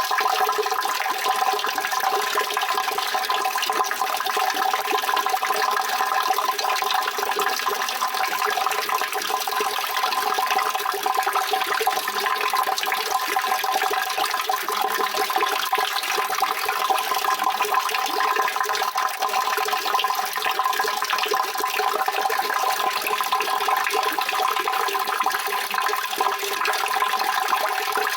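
Water running and rushing in a continuous, even stream, with no pauses or separate splashes.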